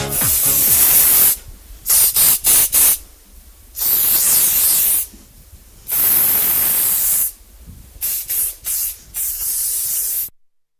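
Spray hissing in repeated bursts: a few long blasts of about a second and clusters of short quick puffs, standing for pesticide being sprayed. It cuts off abruptly just before the end.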